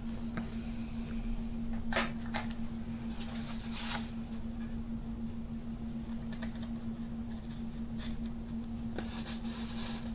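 Fabric covering rustling and crinkling in short bursts as it is peeled up and handled, over a steady low hum.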